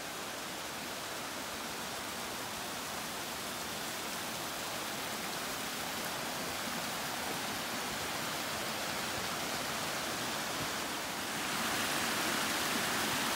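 Rushing creek water, a steady even roar that grows gradually louder, with a step up near the end.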